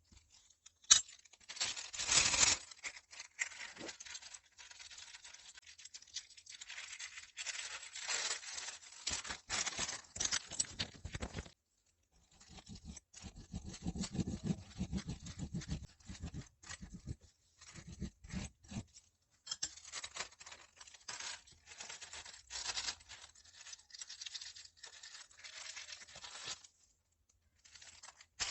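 Close-up scraping, crinkling and clicking of hands working on an old makeup foundation during its repair, coming in stretches of a few seconds with short pauses between them.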